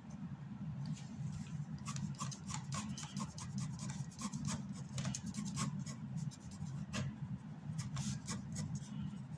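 Ink pen scratching across drawing paper in quick hatching strokes, several a second, starting about two seconds in with a short pause near the end.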